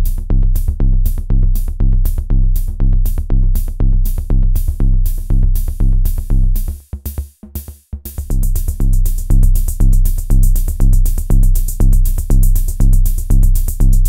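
MODE MACHINES ADX-1 analog drum machine playing an electronic beat: a steady kick about two a second under ticking hi-hats. The kick drops out for a moment about seven seconds in, then comes back with a brighter, denser hi-hat and cymbal sizzle.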